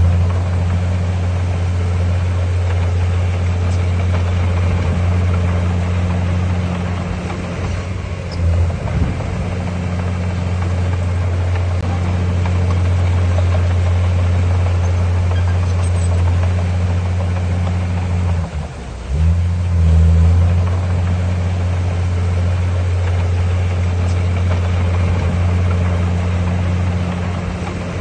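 Heavy diesel engine of earthmoving machinery running steadily under load with a low drone. It eases off briefly about 8 seconds in, drops again near 19 seconds, then surges back up.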